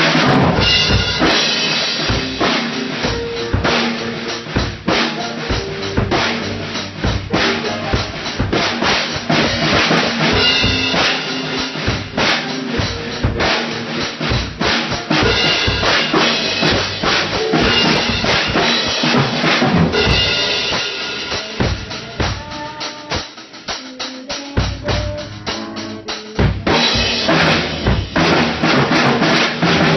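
A band playing a jazzy pop song, with a drum kit driving it throughout. The drumming thins out and the music drops in level for a few seconds past the middle, then the full band comes back in near the end.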